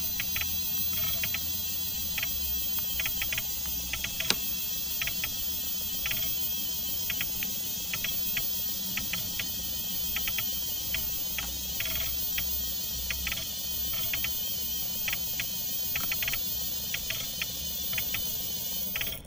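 Net launcher's cam-driven latching mechanism compressing its coil springs: a steady high whir with many irregular light clicks as the cam pushes the latching pistons, and one sharper click about four seconds in.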